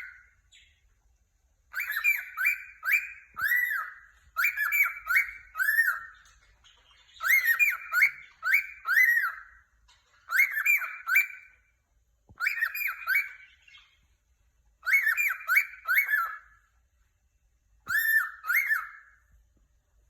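Cockatiel chirping happily in short bursts, each of two to four quick, arching chirps, a group every couple of seconds with brief pauses between; the last burst ends about a second before the end.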